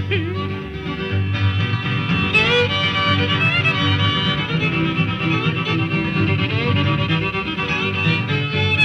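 Instrumental break of a bluegrass song: a fiddle plays the lead with sliding notes over a steady string-band rhythm.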